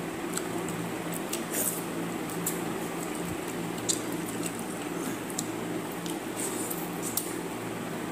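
Wet eating by hand: fingers squishing and mixing water-soaked rice (pakhala) on steel plates, along with chewing, heard as a string of short wet clicks and squelches over a steady low hum.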